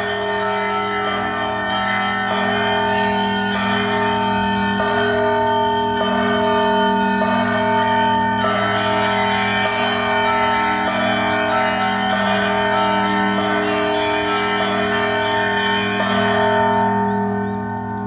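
Orthodox church bells of the Holy Resurrection Cathedral (Nikolai-do) ringing: several bells struck over and over in a steady repeating pattern, each stroke ringing on into the next. The ringing softens near the end.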